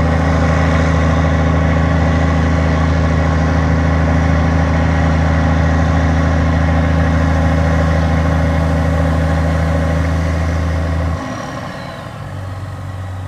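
Large diesel engine of farm harvest machinery running steadily with a deep, even hum. About eleven seconds in it drops suddenly to a quieter engine sound.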